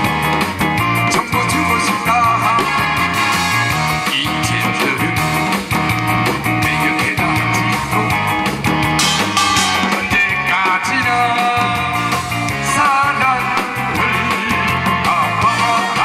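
Loud amplified music with a steady drum beat and a wavering lead melody over it, in the style of a Korean pumba street show.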